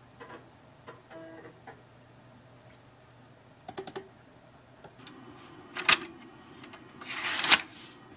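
A PC's 3.5-inch floppy disk drive ticking faintly while it reads a disk, with a quick run of clicks about four seconds in. Near the end there is a louder clack and rattle as the floppy disk is moved in the drive's slot.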